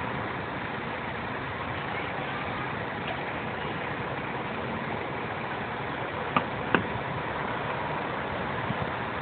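Steady road-traffic noise. Two sharp clicks come a little over six seconds in, about a third of a second apart.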